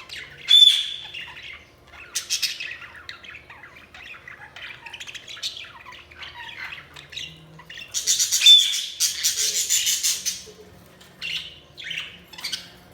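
Budgerigars chirping and chattering in quick, warbling calls. A sharp loud call comes about half a second in, and there is a louder stretch of rapid chatter about eight to ten seconds in.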